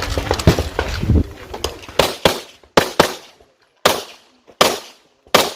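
Handgun shots in an irregular string, about seven over three and a half seconds, starting about two seconds in, typical of a competitor engaging targets during a practical shooting stage. Before them is a low rumbling noise with small clicks.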